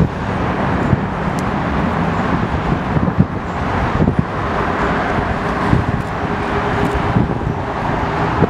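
Steady distant jet rumble of a four-engine Airbus A340 taxiing, mixed with wind buffeting the microphone. A faint steady whine joins about halfway through.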